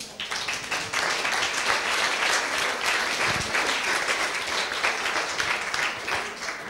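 Audience applauding, the clapping building about a second in and fading away near the end.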